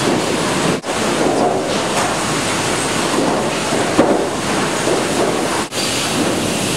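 Loud, steady sawmill machinery noise from the timber line carrying and sorting sawn planks. The sound cuts out sharply twice for an instant.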